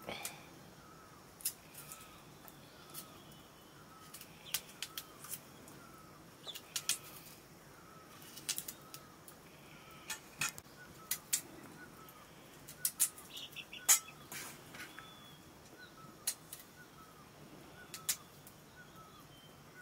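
Knife blade working a raw potato by hand, giving a series of sharp, irregular clicks and scrapes. Behind it, a bird gives a short faint chirp about twice a second.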